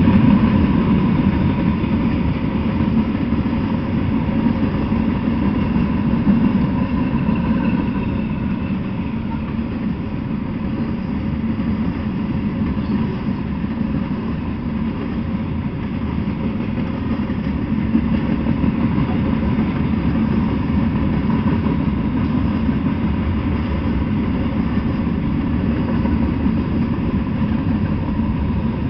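Freight train of covered hopper cars rolling past on the rails with a steady rumble. A diesel locomotive in the train is passing at the start, when it is a little louder.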